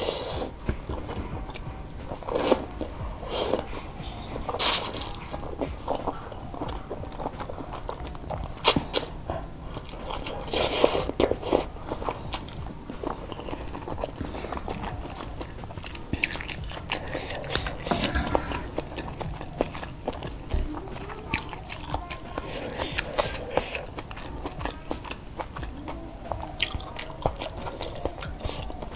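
A person eating noodle soup close to the microphone: chewing and slurping boiled egg noodles, with many sharp wet mouth clicks. The loudest click comes about five seconds in.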